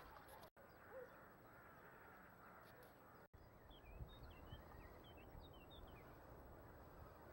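Quiet riverside ambience with small birds chirping: a run of short, high chirps starts about three and a half seconds in. The sound drops out briefly twice, about half a second and three seconds in.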